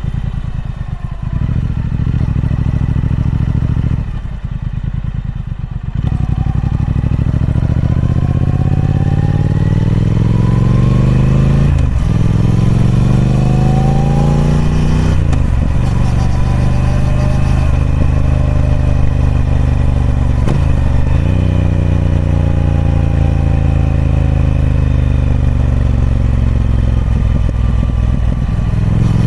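Triumph Speed Twin 1200's 1200cc parallel-twin engine on its stock exhaust, running low and quieter for the first few seconds, then accelerating hard. It shifts up four times, each shift a short break before the note climbs again, then holds a steady cruise.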